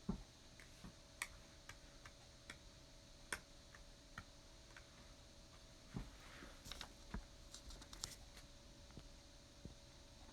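Near silence with faint, irregular clicks and taps, over a faint steady hum.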